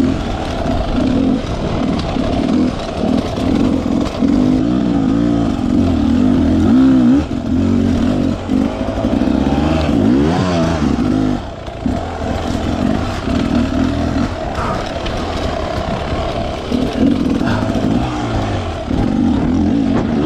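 Dirt bike engine being ridden on a trail, its pitch rising and falling again and again as the throttle opens and closes.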